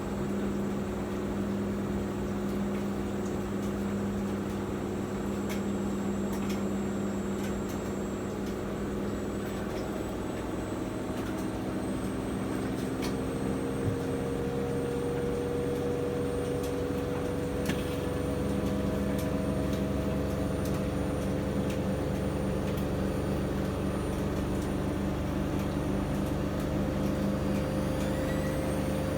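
Miele MedicWash W2585 washing machine spinning its drum, the motor giving a steady hum with tones that begin to rise slowly in pitch about a third of the way in as the spin speed builds.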